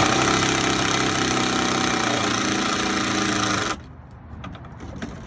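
Power drill driving a screw through Trex composite decking into a joist, its motor running steadily at speed, then stopping abruptly a little over halfway through.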